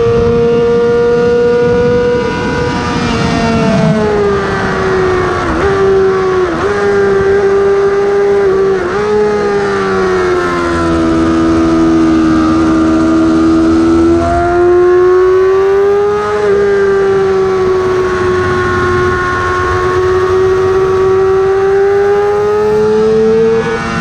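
Yamaha R6's inline-four engine at high revs, then closing off for braking and downshifting: three short dips in pitch about five to nine seconds in. The revs stay low through the corner, then rise again as it accelerates out.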